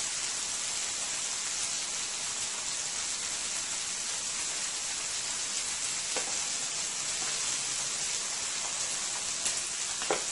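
Steady sizzle of thin marinated boneless steaks frying in a cast-iron skillet, with a couple of faint clicks from the vegetable peeler stripping carrots.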